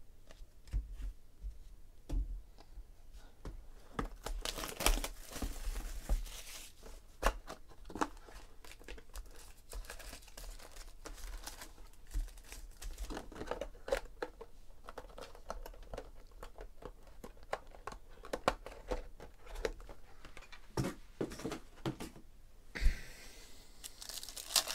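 Trading cards and their cardboard box being handled, with scattered clicks and rustles of card stock being shuffled and sorted. Near the end a foil card pack is torn open, a longer tearing crinkle.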